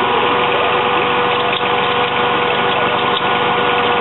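Engine of a self-propelled tree-nursery pruning platform running steadily as it drives slowly along the row, with a constant whine held over the engine noise.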